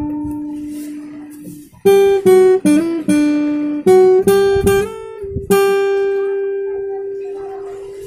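Acoustic guitar played solo, picked up by a laptop's built-in microphone: a held note rings out and fades, then a quick phrase of picked single notes about two seconds in, ending on a long note left to ring and fade.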